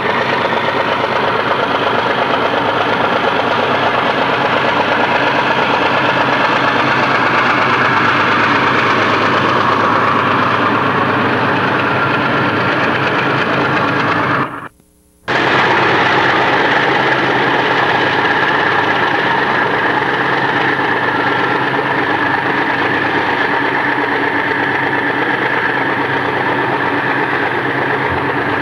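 Conrail diesel-electric locomotives running close by, a loud steady engine rumble. About halfway through it cuts out for under a second, then resumes.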